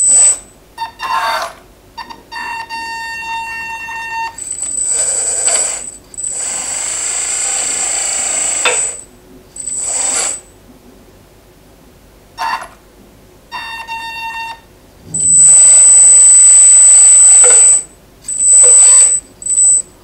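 RC hydraulic skid steer loader's electric hydraulic pump and drive motors whining in repeated stop-start bursts as the lift arms raise and tilt the bucket. Some bursts are a steady high whine, others a hissier whine, the loudest lasting about three seconds from around fifteen seconds in.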